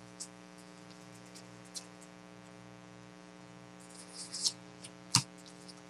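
Trading cards being handled: faint scattered clicks and rustles, a short cluster about four seconds in and a sharper click about five seconds in, over a steady electrical hum.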